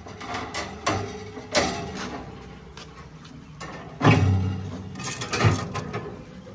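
Rusty steel cage bars or gate being handled, rattling and clanking in a series of sharp metallic knocks with some ringing; the loudest, deepest knock comes about four seconds in.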